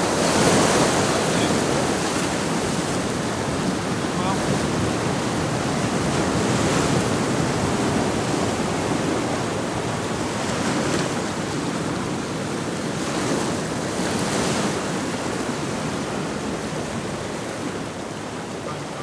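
Sea surf breaking and washing against rocks, swelling several times, with wind on the microphone.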